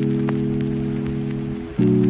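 Background music of sustained held chords, with a new chord starting abruptly just before the end.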